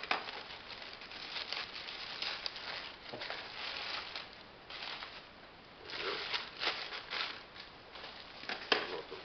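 Plastic packaging being handled: a poly mailer and a bubble-wrapped plastic bag crinkle and rustle in irregular bursts, with a sharp crackle at the start and the loudest one near the end.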